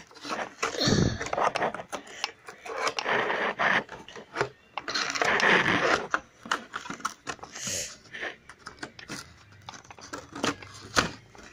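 Hands handling and opening toy-car packaging: irregular clicks, scrapes and rustling bursts, mixed with knocks from the hand-held phone being moved.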